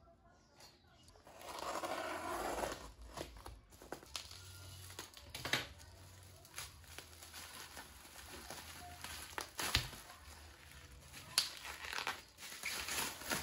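Plastic bubble wrap crinkling and tearing as a bottle is unwrapped by hand. There is a loud stretch of rustling about two seconds in, then scattered sharp crackles.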